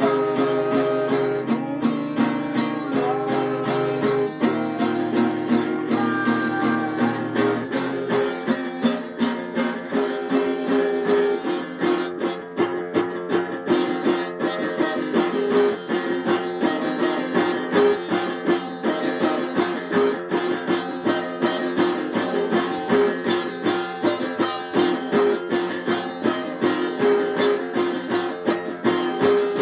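Instrumental music played on a plucked string instrument in a fast, steady stream of notes, over a low sustained drone that drops out about eight seconds in.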